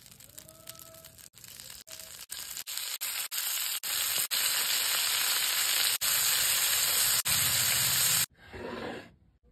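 Cabbage rolls sizzling as they fry in butter in a nonstick frying pan, a steady hiss that grows louder over the first few seconds and breaks off sharply several times. Near the end, a brief, lower scrape of a spatula in the pan.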